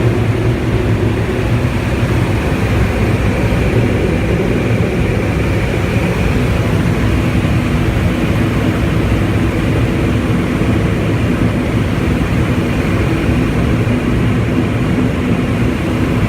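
Turbo Thrush agricultural plane's turboprop engine running steadily: a constant drone with an even high whine over it.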